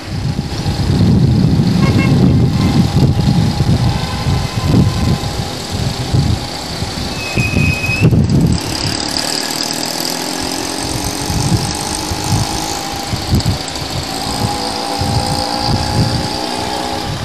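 Motorcycle engine running on the move, with a heavy low wind rumble on the microphone through the first half. Near the end the engine note rises steadily as the bike speeds up.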